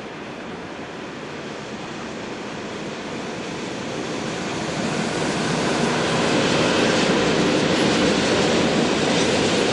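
Freight train of covered wagons rolling past on electrified main line track: a steady rumble of wheels on rail. It grows louder over the first half as the wagons come nearer, then holds steady.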